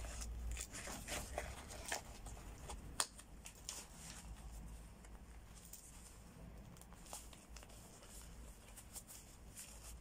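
Hands handling a nylon tactical pouch: faint fabric rustling and scraping with a few small clicks, the sharpest about three seconds in.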